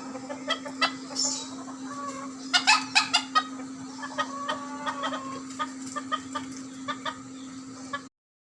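Chickens clucking in a string of short, sharp calls, loudest about two and a half to three and a half seconds in, over a steady low hum. The sound cuts off suddenly near the end.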